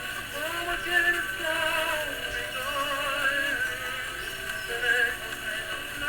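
1922 Victor Victrola acoustic phonograph playing a 78 record of a singer, its turntable turned by hand because the spring motor is out of order for want of a missing part. The voice sounds thin, with a wavering pitch.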